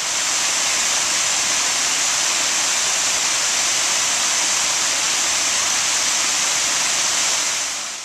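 Small waterfall cascading down rock ledges: a steady rush of falling water that swells in at the start and fades out near the end.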